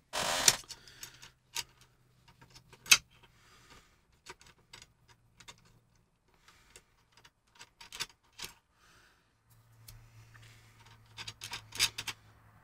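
Small metal clicks and clinks as M8 nuts and washers are handled and threaded onto a threaded steel rod by hand, scattered irregularly, with a cluster of clicks near the end.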